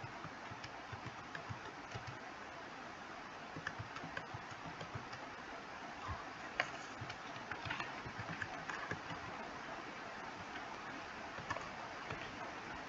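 Computer keyboard keystrokes: short, irregular clicks as text is typed, over a steady background hiss.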